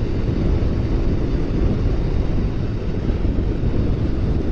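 Wind rushing and buffeting over the microphone of a motorcycle riding at road speed, a steady low rumble with the bike's running underneath.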